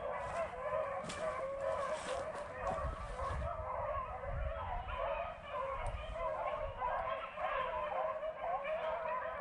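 A pack of beagles baying together in a continuous chorus of overlapping howls and yelps: hounds in cry on a rabbit.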